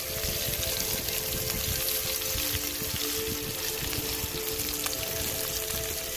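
Pieces of Spanish mackerel sizzling steadily as they pan-fry in hot oil. Background music with a few long held notes plays over it.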